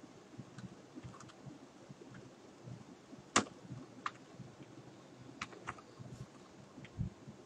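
Computer keyboard being typed on: sparse, irregular keystroke clicks, one noticeably louder a little over three seconds in.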